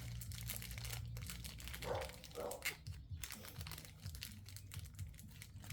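Faint crinkling and light clicks of hands handling small hardware and packaging during assembly, over a steady low hum.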